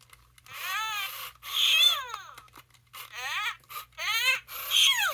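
A 1998 Furby talking through its small replacement speaker: about five short, high-pitched, gliding electronic calls with a hissy edge, its voice in the toy's sick mode.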